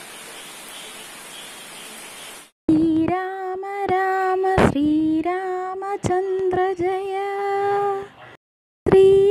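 Steady rain hiss, which stops about two and a half seconds in. Then a woman's voice sings long held notes of a devotional song to Rama, with a few sharp strikes under it. The song breaks off briefly and starts again near the end.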